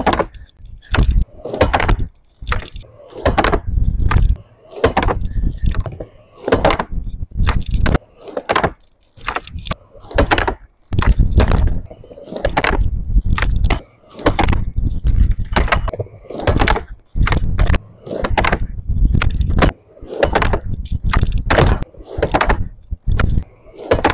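Skateboard wheels rolling on a plywood quarter pipe, with the board's tail clacking onto the coping and the board slapping and clattering on the wood, over and over in many short clips that start and stop abruptly.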